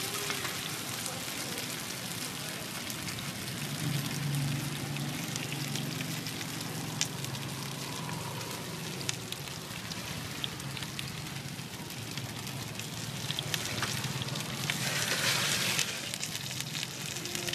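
Chive rice cakes frying in oil in a wide, shallow iron pan: a steady sizzle with a few light clicks, swelling louder briefly near the end.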